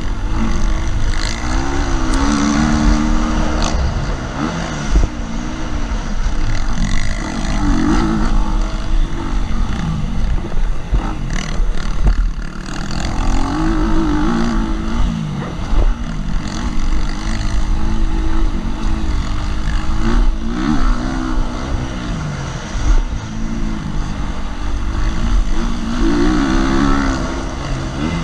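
KTM 250 SX-F four-stroke single-cylinder dirt bike engine revving up and falling back again and again as the rider accelerates out of corners and backs off into them.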